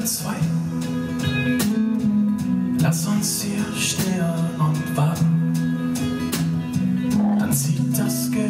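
Live band music: an acoustic guitar strummed over a moving electric bass line, with a man singing at the microphone.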